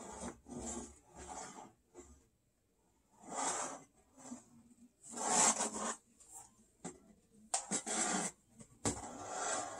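Rubbing and rustling handling noise, several soft swells with a few light clicks, as a homemade softbox is moved and adjusted on its light stand.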